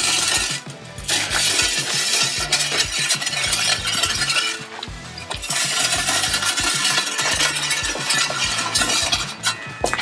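Steel shovel scraping and chopping into dry, stony soil, with gritty, rasping strokes. Background music with a steady beat plays underneath.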